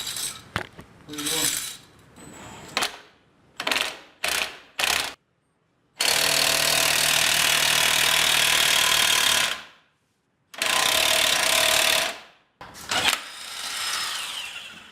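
Tools working on the car in short edited snippets: clicking and clattering, then a power tool running steadily for about three and a half seconds, and another brief run of it near the end.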